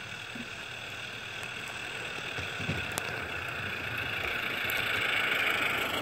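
Small-scale garden-railway steam train rolling toward and past on outdoor track: a steady hiss and rolling noise that grows louder as it nears, with a sharp click about three seconds in.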